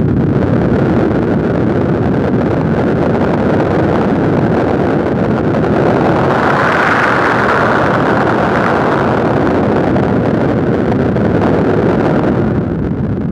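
Noise Engineering Sinc Iter Eurorack oscillator in noise mode, played dry without reverb: a dense, rushing noise weighted low. It brightens toward a hiss about halfway through, then darkens near the end as its knobs are turned by hand.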